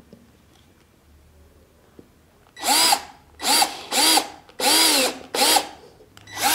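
Cordless drill-driver run in about five short trigger bursts, starting about two and a half seconds in, each whine rising and falling as the motor spins up and slows, driving #12 screws through a metal channel into the base board.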